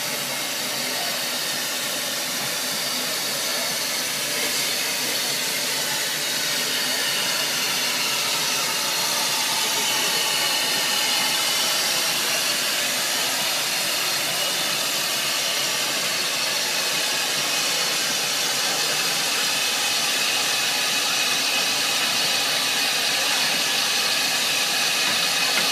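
A narrow-gauge steam locomotive, the Welshpool and Llanfair's Joan, hissing steam steadily as it brings the last train into the station. The hiss grows slightly louder over the first several seconds.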